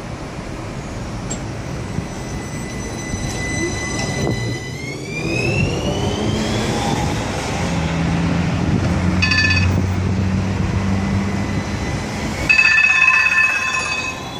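Electric low-floor PESA Swing trams at a stop: the traction motors give a high whine that rises in pitch about five seconds in as a tram pulls away, followed by a low motor hum as another tram comes in. Steel wheels squeal on the rails briefly around the middle and more strongly near the end as the tram runs past.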